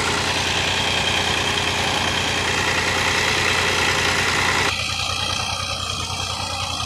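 Fiat Ghazi tractor's diesel engine idling steadily with an even low pulse. The sound drops suddenly in level about four and a half seconds in, and the idle carries on.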